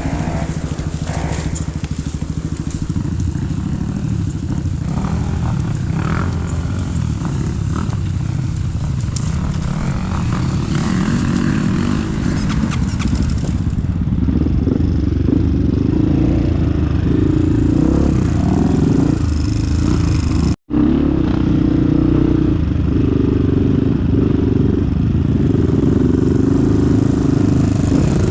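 Dirt bike engine running under way on a trail, a steady low engine note that shifts and grows stronger about halfway through. It cuts out abruptly for an instant about two-thirds of the way in.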